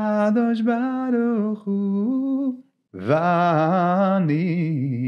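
A man singing unaccompanied, slow held notes that waver in pitch, with a short breath break about two and a half seconds in before the next phrase.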